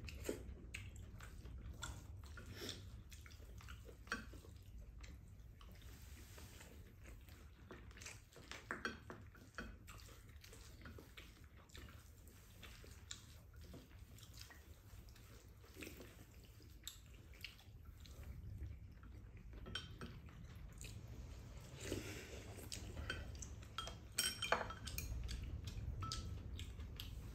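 Spoons and chopsticks lightly clinking and scraping against ceramic bowls during a meal, scattered soft clicks over a low steady hum.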